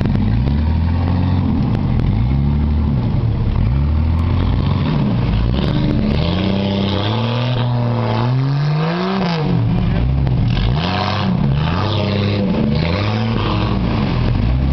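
Lifted Jeep Cherokee XJ's engine revving up and down again and again as it drives through a deep mud hole, with one long rise and fall in pitch about halfway through.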